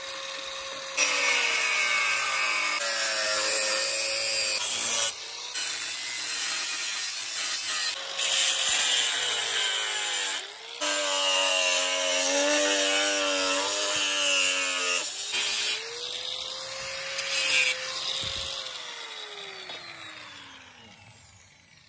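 Angle grinder with a cutting disc slicing through the high-carbon steel of an old saw blade: a loud grinding rasp over the motor's whine, which sags in pitch under load, in several long cuts with brief pauses. Near the end the grinder runs free and then spins down, its whine falling away.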